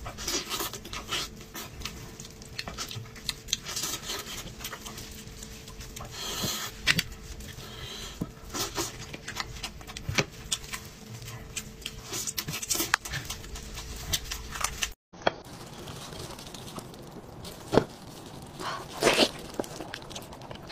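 Close-miked eating sounds from gnawing braised sheep's head meat: wet chewing, sucking and lip smacks with many small clicks. The sound drops out briefly about three-quarters of the way through, then more chewing and sucking follows.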